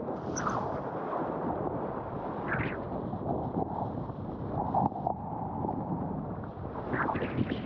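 Wind buffeting the action camera's microphone over the rush of water under a windsurf board sailing at speed, with a few brief splashes.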